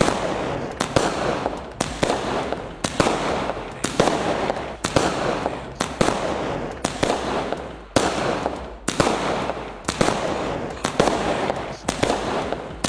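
A Mystic Magic 60-shot fireworks cake firing its shells in steady succession, about one a second. Each shot is a sharp bang followed by a crackle that fades before the next.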